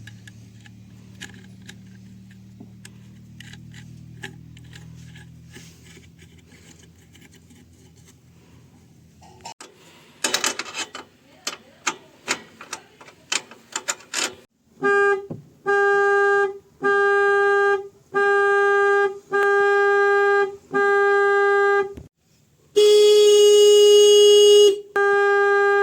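Newly installed aftermarket horn on a Maruti Alto being tested: about seven short honks, each roughly a second long, then one louder blast of about two seconds, then more honks. Before the honking there is a low hum, then a run of clicks and clatters.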